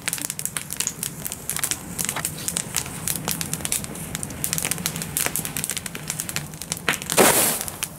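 Wood fire in a fire pit crackling, with many small irregular pops. Near the end a short, loud hissing burst.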